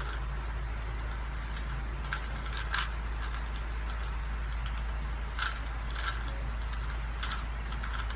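Plastic Rubik's cube being twisted by hand: scattered short clicks and rattles of its turning layers, about five louder ones, over a steady low hum.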